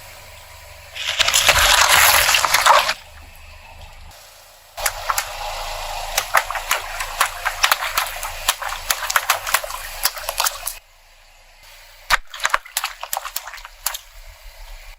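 Objects crushed under a car, in separate passages: a loud wet, gushing hiss, then a long run of dense crackling and cracking, then a few scattered cracks near the end.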